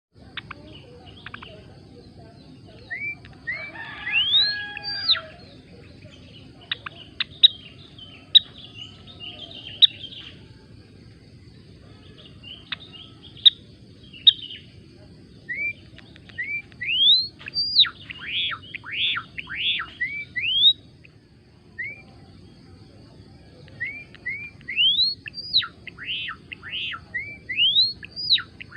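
Gelatik belong singing in full song. Thin whistles sweep upward, and quick arching chirps come in bursts with short pauses. Sharp clicking notes sound in between, clustered midway through the song.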